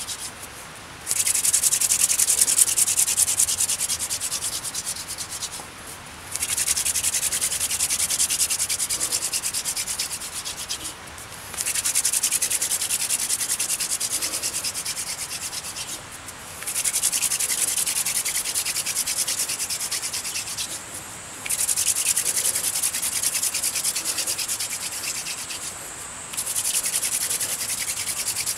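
Friction fire-lighting with a hand drill: a wooden spindle spun rapidly back and forth between the palms, grinding in the fireboard's socket with a fast, scratchy rubbing. It comes in runs of about five seconds, each starting loud and easing off, with a short pause between runs, six times over.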